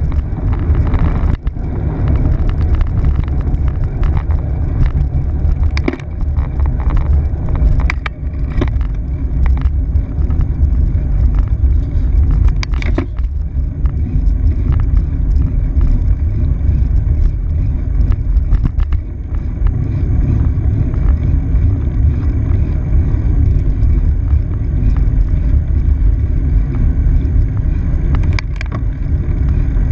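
Steady low rumble of wind and road noise on a handlebar-mounted camera while cycling, mixed with the hum of freeway traffic below the bridge. A few sharp knocks come through, several around the middle and one near the end.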